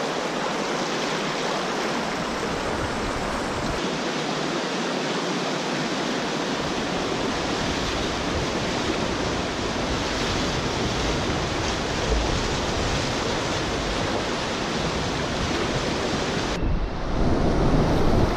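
River rapids rushing in a steady roar of whitewater, louder and fuller near the end.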